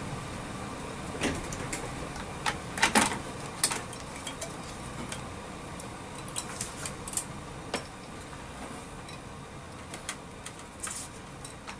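Plastic housing of a 2006 Ford F-150 instrument cluster being handled and turned over on a workbench: scattered light clicks and knocks, the loudest about three seconds in, over a faint steady hum.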